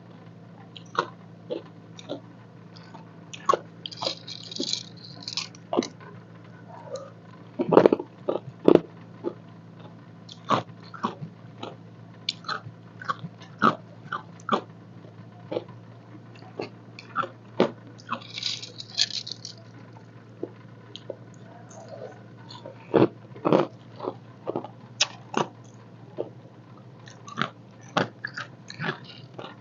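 Ice cubes crunched between teeth: irregular sharp cracks and crunches of chewing, over a steady low hum.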